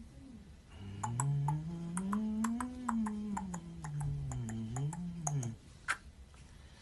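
A man humming a slow, wavering tune for about five seconds, the pitch rising and falling smoothly without a break, with light sharp clicks about three a second over it and one more click just after the humming stops.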